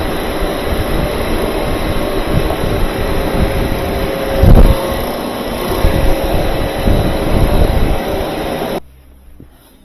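Refrigerant recovery machine running steadily with a hum, pulling the last refrigerant from a wine cooler's sealed system that, by the technician's reckoning, had almost nothing left in it. One thump about four and a half seconds in, and the machine shuts off suddenly near the end.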